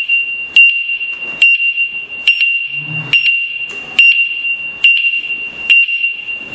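Electric scooter's turn-signal flasher and buzzer sounding: a steady high-pitched beep tone with a sharp click a little more than once a second, as the indicator flashes.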